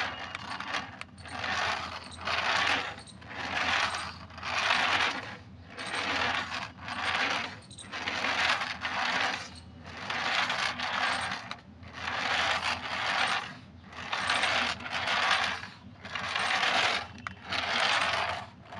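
Toy RC car's small electric drive motor and plastic gears whirring in short bursts, about one a second, as it is driven in spurts.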